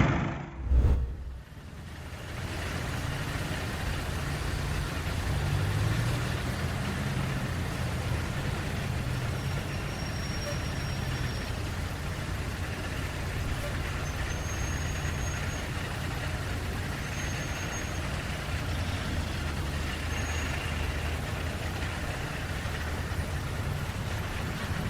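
A heavy vehicle engine running steadily with a low drone. A brief low thump comes about a second in.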